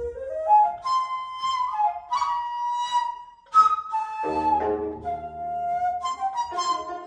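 Daegeum, the Korean large bamboo transverse flute, playing a breathy melody that climbs and holds its high notes. About four seconds in, plucked gayageum strings come in beneath it.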